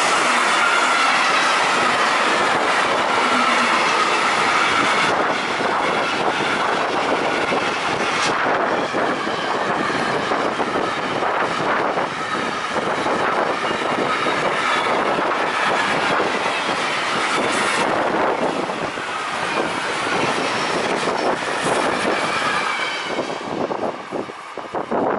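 Freight train of container wagons carrying tank containers passing close by at speed: a continuous rumble of wheels with rapid clattering over the rail joints and a high ringing whine that fades over the first few seconds. The noise falls away near the end as the last wagons pass.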